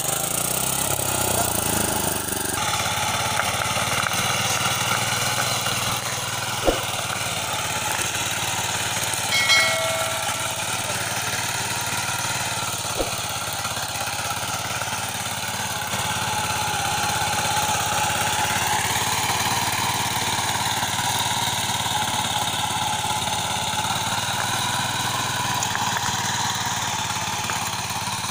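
S Raja walk-behind power tiller's small engine running steadily under load as it tills. Its speed picks up slightly about two-thirds of the way through. Two sharp clicks and a brief high-pitched tone break in partway.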